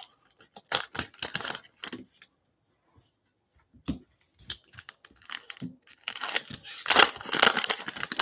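Foil trading-card pack wrappers being torn open and crinkled by gloved hands, in bursts, the longest and loudest tearing near the end. A few light taps and clicks of cards being handled come in the quieter stretch between.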